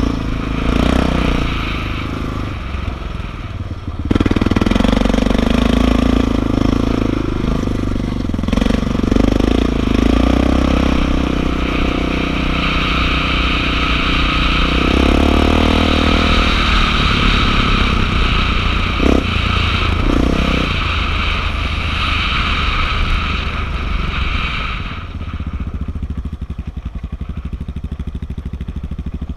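ATV engine running under way on a dirt trail, its revs rising and falling with the throttle. It gets louder about four seconds in, then eases to a lower, steadier note for the last few seconds.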